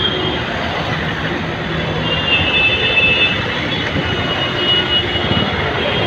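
Heavy road traffic at close range: many idling and running vehicle engines blend into a steady, dense din. A thin high tone sounds faintly about two seconds in and again near the end.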